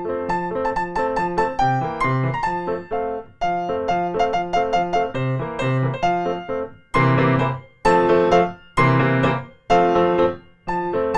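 Solo piano playing a lively piece: quick running notes over a repeating bass, then, about two-thirds of the way in, four loud full chords struck about once a second with short breaks between them, before the running notes return.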